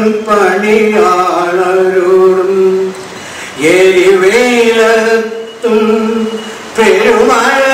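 A man singing a Malayalam poem in a slow, chant-like melody, holding long notes that glide between pitches, with a brief pause for breath about three seconds in.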